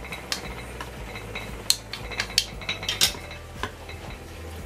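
Wooden chopsticks stirring food in a white ceramic bowl, clicking against its side a handful of times at irregular intervals over a steady low hum.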